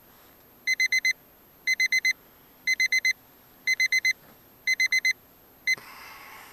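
Electronic alarm clock beeping in quick groups of four, about once a second. It cuts off mid-pattern after a single beep near the end, followed by a brief rustle.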